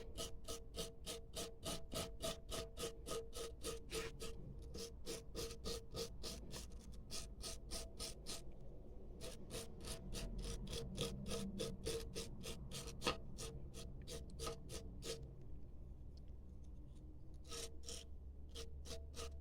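Wire brush scrubbing the electrodes of a lawnmower spark plug in quick back-and-forth strokes, about four a second, with a few short pauses, cleaning the dirty plug.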